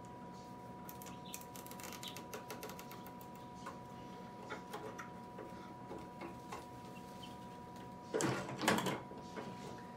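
Small clicks and rattles of needle-nose pliers working wires and plastic parts inside the incubator's clear plastic cover, then two louder rustling scrapes about eight seconds in as the cover is handled. A faint steady high hum runs underneath.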